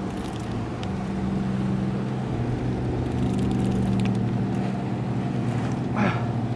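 Boat's motor idling with a steady low hum.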